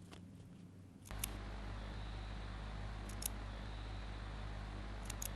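Quiet room tone: a steady low hum with a faint hiss comes in suddenly about a second in, with a few faint, light clicks.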